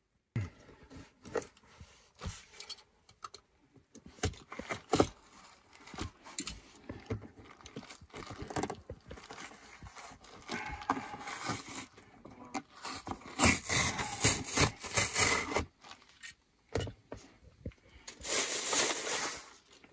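Hand tools scraping, clinking and tapping on the bare metal van floor as a knife cuts and tears foam away around freshly drilled holes. Irregular clicks and short scrapes, with two longer, louder scraping stretches in the second half.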